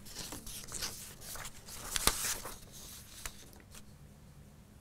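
Rustling and scattered clicks, with one sharp click about two seconds in, dying away about a second before the end.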